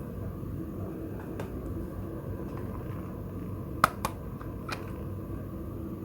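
Steady low background hum with a few sharp, light clicks or taps, the loudest pair about four seconds in and another just after.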